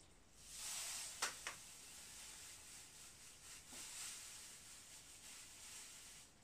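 Granulated sugar poured from a paper bag into a small glass bowl: a faint hiss and rustle of the bag and falling sugar, with two light clicks about a second in.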